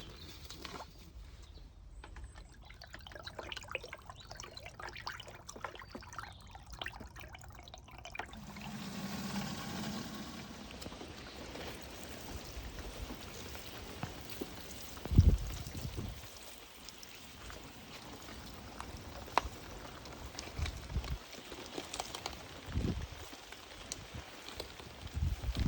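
Water pouring and trickling, with scattered drips. A few dull low thumps come through, the loudest about midway.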